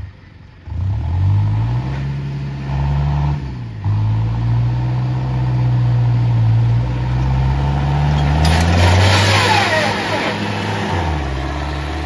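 Tractor diesel engine revving hard under load, starting about a second in. Its pitch climbs, dips near four seconds, holds high and rises again before dropping near the end. A rushing hiss with a falling squeal joins it around nine to ten seconds.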